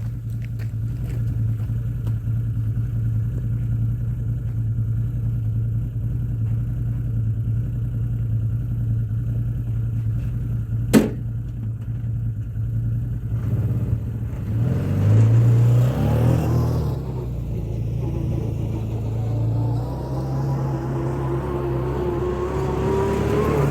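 Can-Am Commander 1000's V-twin engine running steadily, with one sharp click about halfway through. In the second half the engine revs up and down, its pitch rising toward the end.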